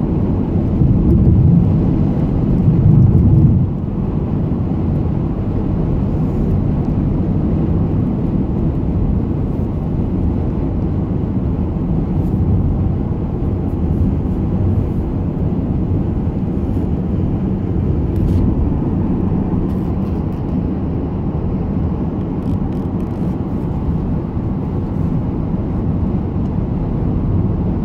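Steady low road and engine noise heard inside a car's cabin while driving on the highway, a little louder for a couple of seconds near the start.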